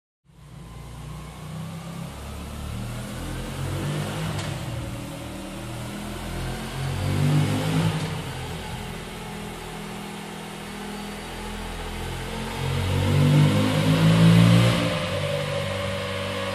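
Moto Guzzi V85 TT's air-cooled transverse V-twin running through its stock exhaust and being revved up and down several times, with the strongest revs near the end.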